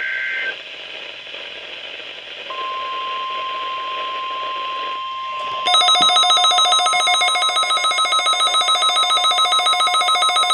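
NOAA Weather Radio alert sequence: the end of a warbling SAME data burst, a moment of hiss, then the steady 1050 Hz warning alarm tone starting about two seconds in, which signals that an alert message follows. About halfway through, a louder, rapidly pulsing electronic alarm joins it: a weather alert receiver set off by the alert.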